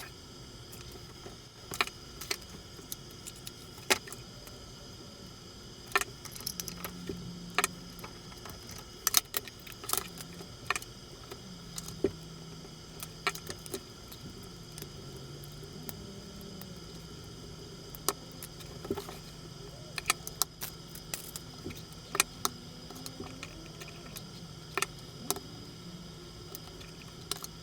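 Scattered sharp clicks and light metallic clinks of small hand tools and parts being handled while taking apart a radio-control car chassis, irregular and many, over a steady low hum.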